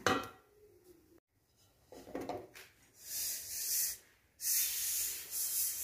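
Dry-roasted small black grains poured from a metal kadai onto a steel plate: a sliding, rushing hiss in two spells in the second half, after a brief scrape of the pan.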